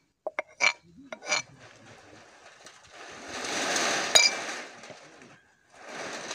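Metal pestle knocking and scraping against an aluminium pounding cup and the wok rim as ground chilli is tipped into the wok: several sharp metallic clinks in the first second and a half, then a hiss and one more clink about four seconds in as the cup is set down with the pestle in it.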